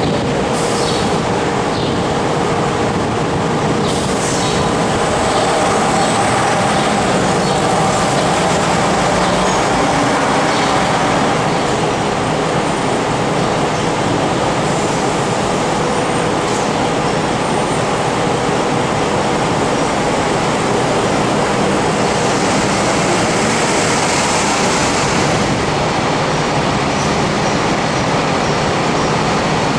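City buses with diesel engines running and passing, a steady engine hum over continuous traffic noise.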